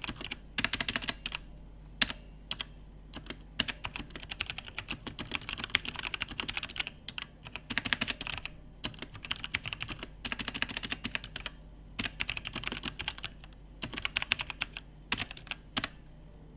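Typing on a mechanical keyboard fitted with Outemu Brown tactile switches: fast runs of keystrokes in bursts of a second or two, with short pauses between them.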